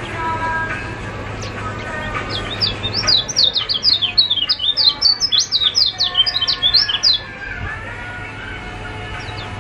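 Kecial kuning white-eye singing: a fast run of high, sharp, downward-sweeping chirps, about five a second, starting about two seconds in and lasting about five seconds. Under it are steady whistled tones and a low hum.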